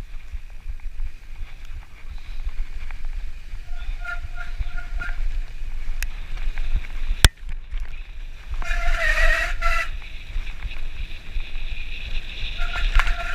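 Mountain bike riding fast down a muddy dirt track: steady wind rumble on the microphone with tyre and frame rattle, a couple of sharp knocks. Short high squeals come and go, loudest about nine seconds in, typical of disc brakes squealing under braking in the mud.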